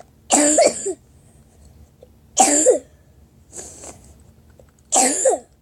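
A person coughing: three loud, harsh coughs about two seconds apart, with a fainter breath between the second and third.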